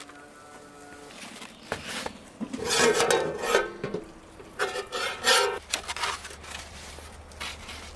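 Polystyrene foam takeaway boxes squeaking and rubbing as they are handled and opened, with the metal lid of a large aluminium cooking pot clattering and scraping as it is lifted off. The loudest squeaking comes about three seconds in and again around five seconds.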